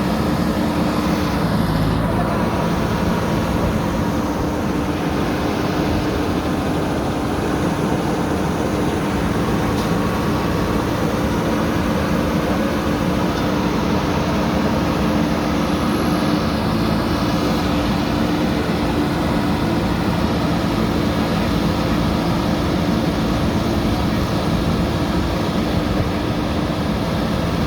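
JCB backhoe loader's diesel engine running steadily, an even drone that holds the same level throughout.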